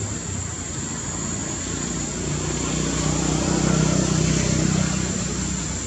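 A motor vehicle's engine passing by: a low hum that swells from about two seconds in to a peak near four seconds, then fades. A steady high-pitched whine runs underneath.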